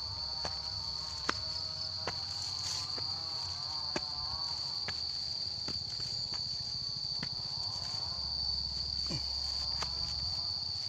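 Insects keep up a steady, unbroken high-pitched drone, over regular footsteps on a dirt path, a bit more than one step a second, as a person walks uphill.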